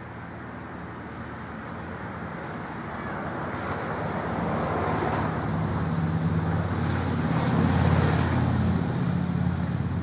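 A motor vehicle passing: a low running noise with road hiss that grows steadily louder, peaks about eight seconds in, and begins to fade near the end.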